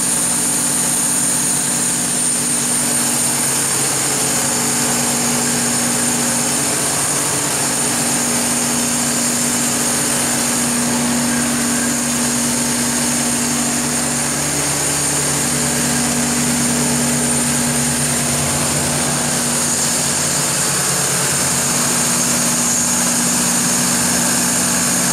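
Kohler 750REOZMB diesel generator set, its Mitsubishi S12A2 V12 diesel engine running steadily at constant speed, with a steady high whine over the engine note.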